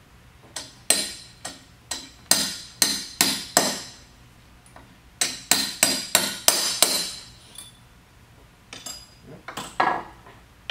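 Small hammer striking a pin punch to drive a roll pin into a pallet jack hydraulic unit's housing: sharp metallic taps in two quick runs of about eight blows each, with a pause between. A few lighter clinks follow near the end.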